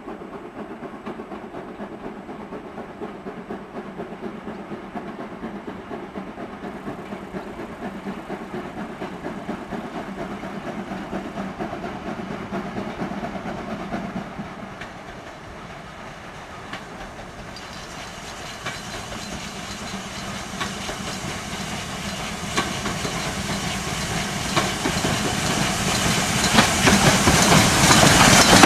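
GWR Large Prairie 2-6-2 tank locomotive 5164 approaching with its train, steam hissing, growing steadily louder over the second half until it draws past close at the end.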